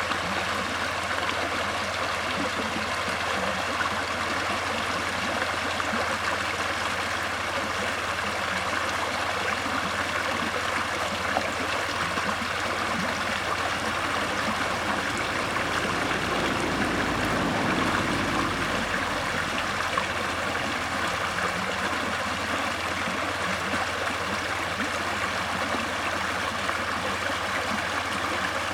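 Flowing water: a steady, even rushing with a trickling, gurgling texture. It grows briefly fuller and deeper a little past halfway through.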